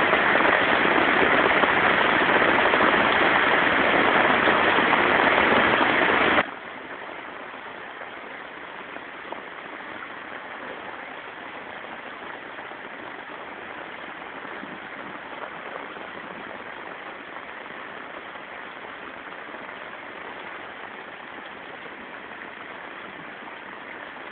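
Heavy monsoon rain pouring down as a loud, steady hiss. About six seconds in, it drops abruptly to a much quieter steady rush.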